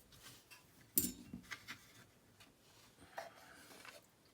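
Small metal parts of a lever lock being handled: a sharp click about a second in, then faint light taps and rustling.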